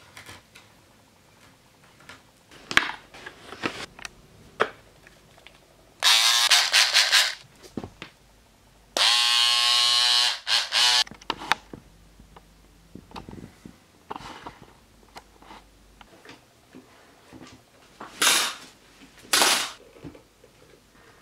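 Tufting cloth being handled and cut at a wooden frame: knocks and bursts of harsh rasping, with a brief buzz of a small electric tool about nine seconds in, the loudest sound.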